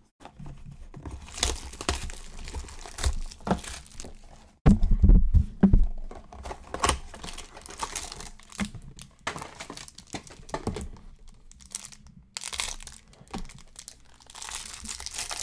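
Plastic trading card pack wrapping crinkling and tearing as a pack of football cards is opened and the cards are handled, with a heavy low thump about five seconds in.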